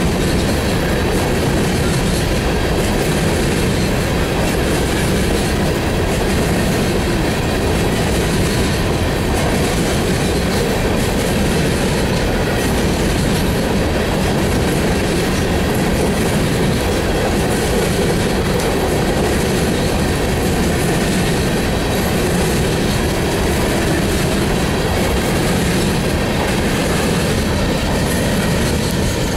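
Empty coal hopper cars of a freight train rolling past at a steady speed, their steel wheels running loud and unbroken on the rails.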